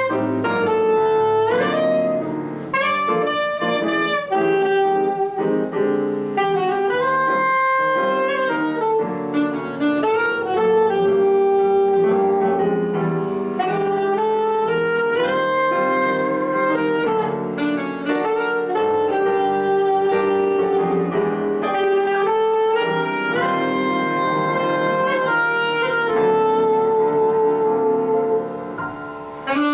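Saxophone playing a march melody over grand piano accompaniment, a live duet. The phrase tails off briefly just before the end.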